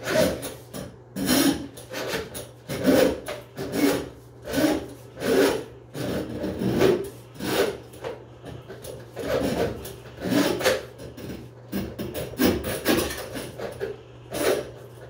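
Steel drain-auger cable scraping against the tub drain as it is pulled back out hand over hand, in a rhythmic series of rasping strokes about one or two a second. The snake is being retracted after breaking through a hair clog caught on its end.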